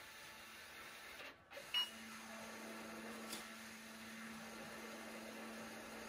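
Asahi Robocco beer-server robot refrigerator giving a short electronic beep nearly two seconds in, after which a steady low electrical hum starts up from the unit, with a single faint click about a second later.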